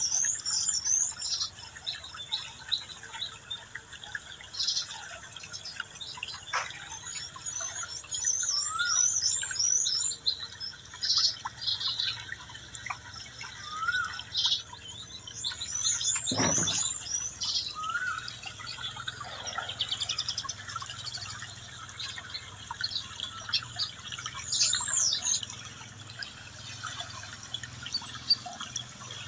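Birds chirping in repeated bursts of quick, high twittering calls, with a few single lower rising calls in between.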